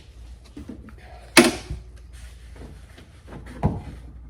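Hand tools working at a car door's edge: a sharp metallic knock about a second and a half in, a duller thump near the end, and small handling clicks between them.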